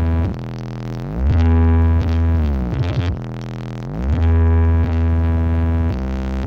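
Very loud carnival sound system playing electronic music with heavy, distorted bass. Deep bass chords slide up and hold loud twice, with a downward pitch slide between them, then settle into a lower steady drone near the end.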